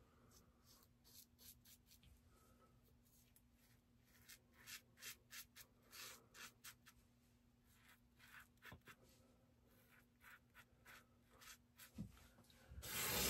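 Faint, short scratching strokes of an Everyday Shaving magnetic safety razor cutting stubble on a pass against the grain, in quick runs in the middle. Near the end a tap starts running.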